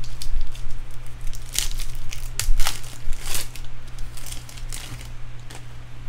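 Foil wrapper of a Bowman Draft jumbo pack of baseball cards being torn open and crinkled by hand, with a few sharp ripping crackles in the first three or four seconds, then softer rustling.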